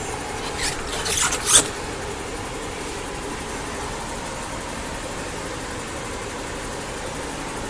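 A few brief rustling, scraping handling noises about a second in, then a steady, even background hum with no motor whine.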